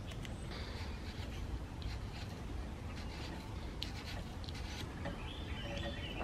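Faint rubbing and scraping as the dirty ignition points of a 1950s chainsaw magneto are cleaned with a thin strip worked between the contacts, with a few small clicks.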